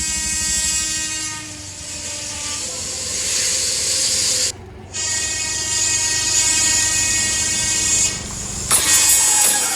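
A train running at a station: steady whining tones over a rushing hiss. The sound drops out for a moment about halfway and changes abruptly near the end.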